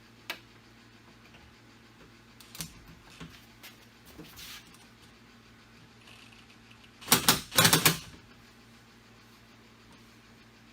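Scattered sharp clicks and knocks from hand work on car-door hardware, then a short burst of rapid, loud clicking about seven seconds in.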